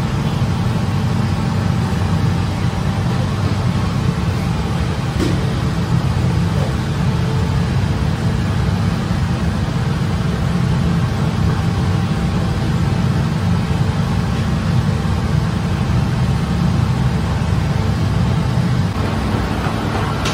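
Bakery conveyor oven running: a steady low rumble with a faint motor hum from the oven and its mesh conveyor belt.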